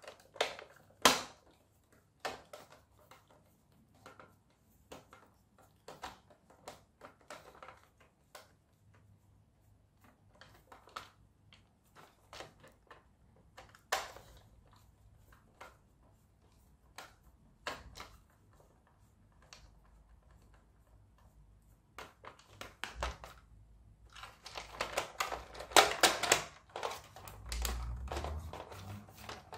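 Plastic parts of a Lightning McQueen RC toy car clicking and tapping as the car is handled and taken apart. There are scattered single clicks at first, then a denser run of clicking and rattling in the last few seconds as the body shell is worked loose from the chassis.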